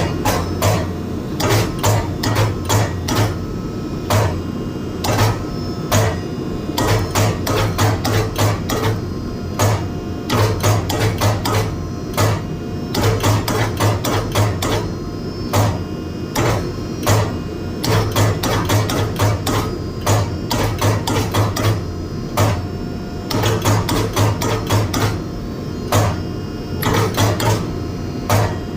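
A blacksmith's hammer striking hot steel on an anvil in runs of about two to three blows a second, each blow ringing, with short pauses between runs, as the crowbar tip is forged. A steady low hum runs underneath.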